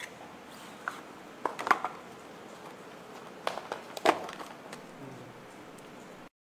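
Packaging being handled: scattered crackles and clicks, loudest a little under two seconds in and again about four seconds in. The sound cuts to dead silence briefly near the end.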